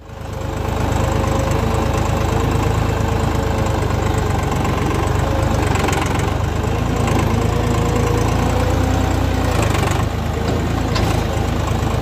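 Tractor's diesel engine running steadily under load, heard from the driver's seat, with a deep even engine beat and some mechanical rattle.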